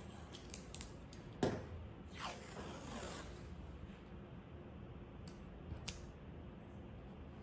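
Masking tape being handled and pulled off its roll: a few light clicks, a sharp snap about one and a half seconds in, then a drawn-out peeling rasp, with two more clicks later on.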